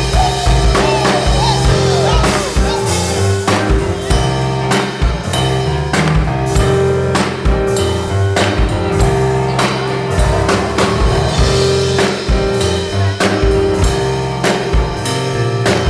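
Church band playing gospel music: a drum kit keeps a steady beat under sustained held chords.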